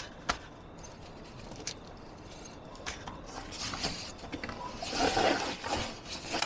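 Rustling with scattered light clicks and knocks, as onions and tomatoes are taken out and handled for cutting. The rustling grows louder about three and a half seconds in.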